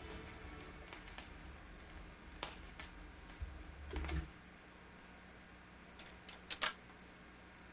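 Dual 1229 record changer's mechanism clicking through its automatic change cycle after the record ends. A low rumble stops about four seconds in, and a few light clicks and clunks come scattered through, the last pair near the end the loudest.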